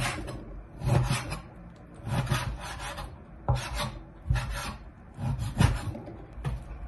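Kitchen knife cutting pork belly into chunks on a cutting board: repeated short sawing strokes through the meat and the blade scraping the board, about once a second.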